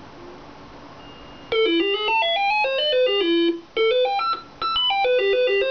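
Radio Shack Robie Sr. toy robot's speaker playing an electronic beeping tune from its program cassette. It opens with about a second and a half of low hiss, then fast runs of stepped beeps that jump from pitch to pitch, in bursts with short breaks between them.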